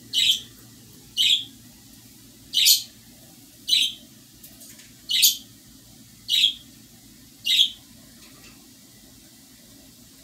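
A bird chirping: seven short, high chirps, about a second apart, which stop shortly before the end.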